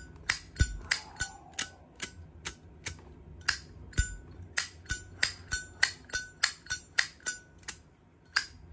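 Zippo lighter's hinged metal lid flicked open and snapped shut over and over: a quick run of sharp metallic clicks, about three a second, each with a brief ringing ping, with a short pause near the end.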